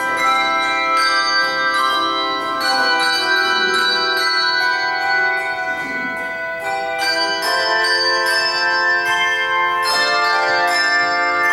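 Handbell choir playing an Irish medley: many tuned handbells struck together in changing chords, each note ringing on as the next ones sound.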